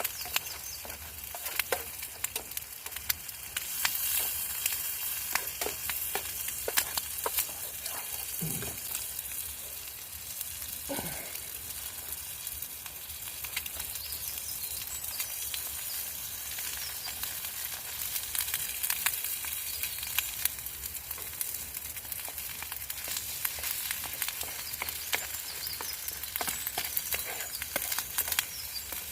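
Sizzling and crackling over a campfire: a steady hiss with frequent sharp pops. Two short falling squeaks sound about 8 and 11 seconds in.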